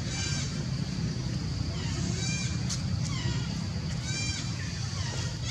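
Short, high-pitched animal calls, one about every two seconds, over a steady low rumble.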